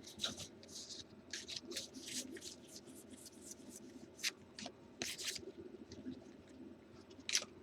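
Baseball trading cards being slid and flipped through by hand, a quick run of short, faint swishing rustles of card against card.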